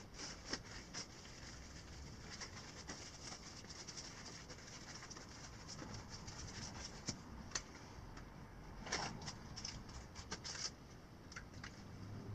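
Nylon outdoor gear being handled and folded, soft irregular rustling and scratching with small taps, louder for a moment about nine seconds in.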